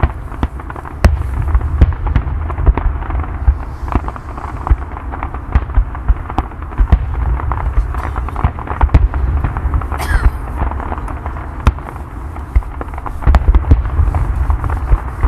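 Aerial fireworks exploding in a dense, continuous barrage: many overlapping booms and sharp pops over a deep rumble, with a burst of crackle about ten seconds in.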